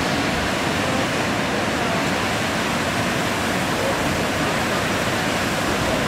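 Glanni waterfall's cascades rushing steadily over basalt ledges, an even roar of falling water.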